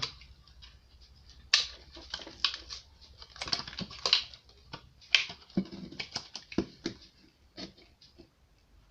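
Irregular sharp clicks and light knocks of fuel pump module parts being handled and snapped into position by hand, thinning out near the end.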